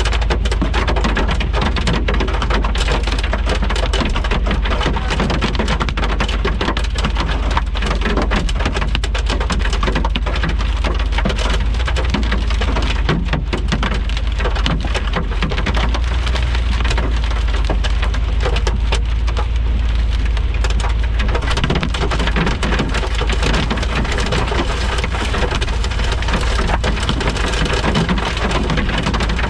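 Heavy thunderstorm rain pounding down, a dense, steady patter of drops over a constant low rumble.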